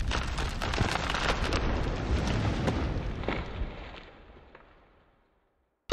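Logo-intro sound effect: a rumbling, crackling wash of noise with scattered sharp clicks, fading out about five seconds in.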